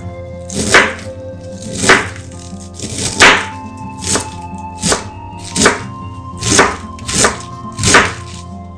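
Chef's knife cutting through a head of cabbage onto a wooden cutting board, about nine evenly spaced cuts, a little more than one a second. Soft background music with steady held notes plays underneath.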